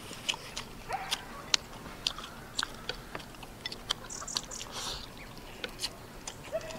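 Two people eating salted duck and rice: chewing and gnawing meat off the bone, with irregular sharp little clicks of chopsticks against porcelain rice bowls.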